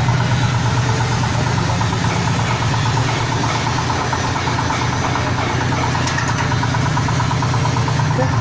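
A machine motor running steadily with a low hum and a fast, even, light ticking over it, like an engine at idle.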